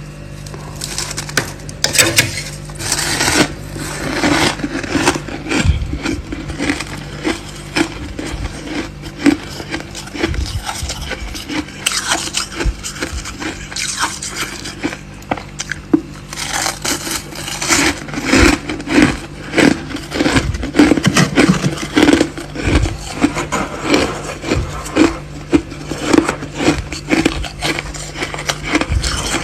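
Freezer frost being scraped loose and crunched between the teeth: a dense run of irregular crunches and scrapes over a steady low hum.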